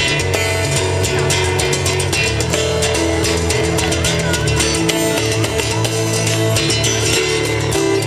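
Solo steel-string acoustic guitar played fingerstyle: a melody over bass notes, with percussive hits on the strings and body keeping a steady beat.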